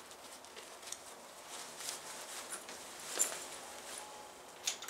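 Faint rustling of a cloth backpack being handled, with scattered light scuffs and a sharper knock about three seconds in and another near the end.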